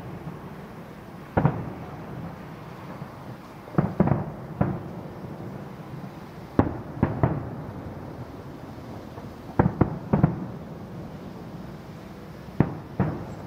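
Aerial firework shells bursting in a display: loud bangs in groups of one to four every two to three seconds, each trailing off in a rolling echo.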